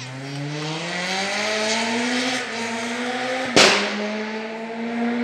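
Rally car engine pulling hard, its note climbing steadily for a couple of seconds and then holding. A single loud, sharp bang cracks out about three and a half seconds in.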